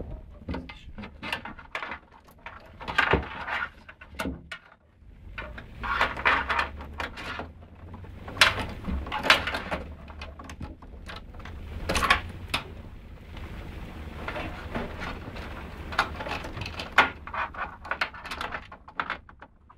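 Hands working PC cables and connectors in and around a computer case: irregular clicks, knocks and rattles of plastic and metal parts, with rustling.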